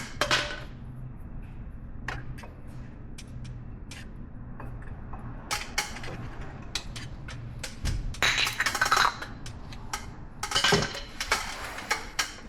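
Metal hand tools and parts clinking and clattering during a brake teardown: scattered sharp clicks, with two busier bursts of rattling about eight and eleven seconds in.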